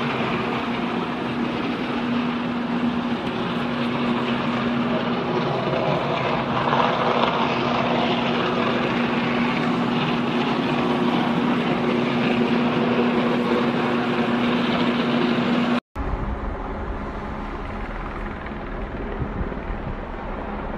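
Transformer at an electrical substation arcing and burning, giving a loud, steady electrical hum under a dense rushing roar. About three-quarters of the way through, the sound cuts off abruptly to a lower, duller rumbling noise without the hum.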